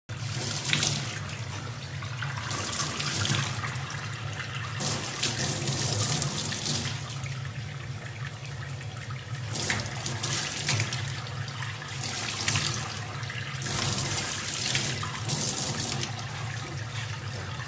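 Tap water running into a stainless steel sink, the splashing swelling and easing as a young chimpanzee moves its hands in and out of the stream. A steady low hum runs underneath.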